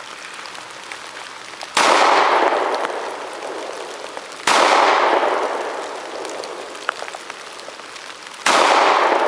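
Pistol firing three single shots, a few seconds apart, each followed by a long fading echo.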